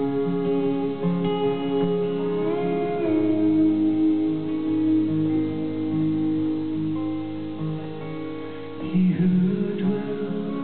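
Live band playing a slow instrumental passage led by guitars, an acoustic guitar and a resonator guitar, with one note sliding up in pitch about two and a half seconds in.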